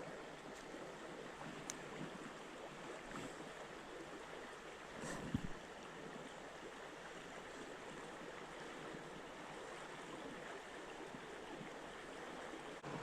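Steady rushing of a flowing river, with a brief knock about five seconds in.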